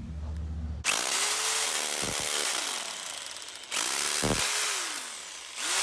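Power drill boring into the concrete floor, running in three bursts that start about a second in; the motor's pitch climbs as each burst starts and sinks as it stops.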